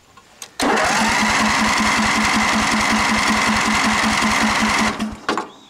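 Electric starter cranking the John Deere Sabre riding mower's engine for about four seconds: a steady whir with an even beat of compression strokes, about five a second. The engine does not catch, and the cranking stops about five seconds in. The owner suspects the engine is flooded.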